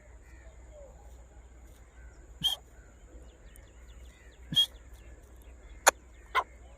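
Faint scattered bird chirps over a low hum and a steady thin high whine, broken by four sharp clicks or taps, the loudest sounds: two about two seconds apart, then a quick pair near the end.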